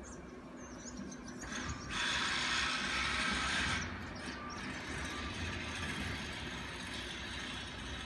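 Steady low rumble of city traffic, with faint high wavering chirps in the first two seconds. About two seconds in, a loud hiss starts abruptly, lasts just under two seconds and cuts off suddenly.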